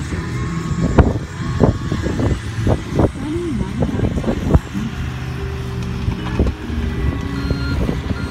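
Diesel engine of a John Deere mini excavator running steadily. Over the first few seconds there is a rapid series of sharp knocks and clanks.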